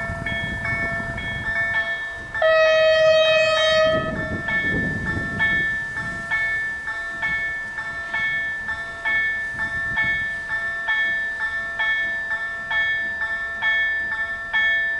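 Level-crossing warning bells ringing, a rapid, evenly repeating electronic chime. About two seconds in, the horn of the approaching MR 4055 / MRD 4255 diesel multiple unit sounds one long note over the bells, the loudest sound here.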